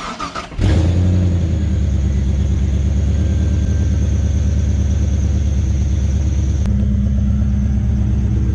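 LS1 V8 engine cranked on the starter and catching within a second, then idling steadily through an exhaust with a new high-flow cat. A thin high squeal runs over the idle from a worn idler pulley bearing.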